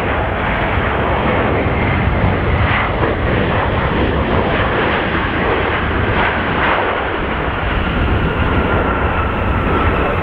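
Boeing 737-800's CFM56 turbofan engines as the airliner rolls along the runway: steady, loud jet-engine noise with a faint high whine running through it.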